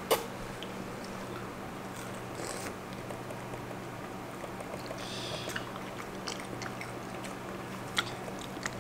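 Chimpanzee chewing soft mango flesh close to the microphone, with short mouth clicks scattered through, the sharpest about eight seconds in, over a steady low hum.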